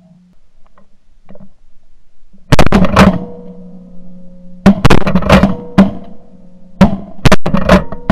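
Shotgun blasts fired at a flock of Canada geese, several loud shots in quick clusters: one group about two and a half seconds in, another near five seconds, and more from about seven to eight seconds.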